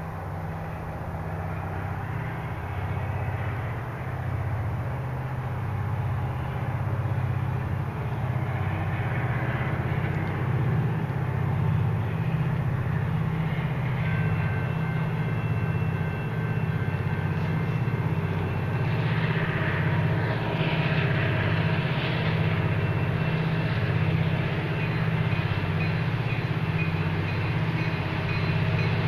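Diesel locomotives of an approaching freight train rumbling hard under load, a deep throbbing that grows steadily louder as the train nears. A faint steady whine joins about halfway through.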